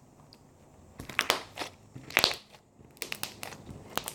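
Homemade white glue slime being squished and stretched by hand, giving clusters of crackling, popping clicks, starting about a second in and coming three or four times.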